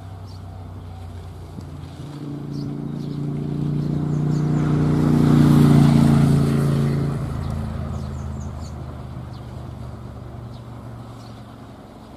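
A vehicle passing by: a steady engine or motor hum that swells to its loudest about six seconds in and then fades away, with a few faint bird chirps.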